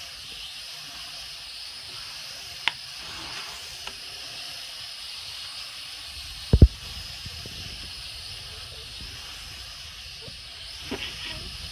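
Mini quadcopter rotors whirring as a steady hiss, with a sharp tick about two and a half seconds in and a short double thump about six and a half seconds in.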